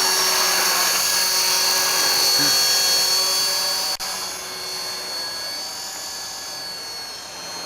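Electric T-Rex 450 RC helicopter in flight: a steady high-pitched whine from its motor and gears over the rush of the rotor blades, growing quieter about four seconds in.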